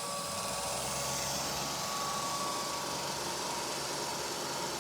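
Several robot vacuums, among them a Deebot U2, a Neato D7 and a Roomba i3+, running at once: a steady whirring hiss of suction fans and brushes with a thin steady whine, and a low hum that comes in about half a second in.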